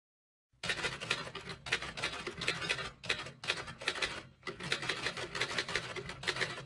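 Rapid keyboard typing: dense runs of keystroke clicks starting about half a second in, broken by three short pauses, as the words of a title are typed.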